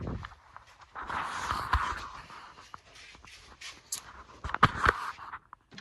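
Footsteps and scuffing as someone walks, with rustling and a few sharp knocks near the end.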